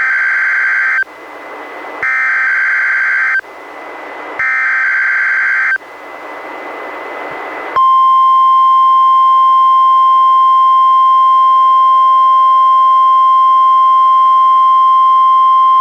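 NOAA Weather Radio alert signals from a weather radio receiver. First come three short SAME digital header data bursts, each about a second long and about two seconds apart, with radio hiss between them. About eight seconds in, the steady 1050 Hz warning alarm tone starts and holds; it is sent here as part of the required weekly test.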